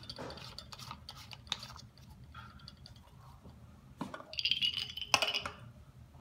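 Light clicking on the magnetic stirrer, then, about four seconds in, a louder run of glass clinks and scraping with a brief ringing as the glass Erlenmeyer flask is grasped and shifted on the stirrer plate.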